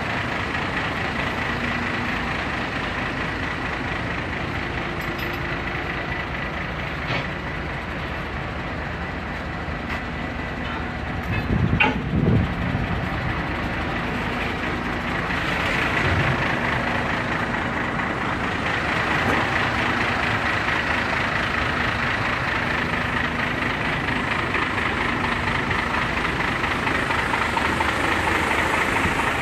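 Flatbed truck's diesel engine idling steadily, with a brief louder rumble about twelve seconds in.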